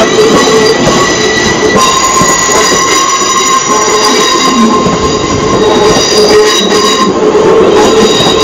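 Electric multiple-unit passenger train moving slowly along a platform, its wheels squealing in several high, held tones over the rumble of the coaches running past.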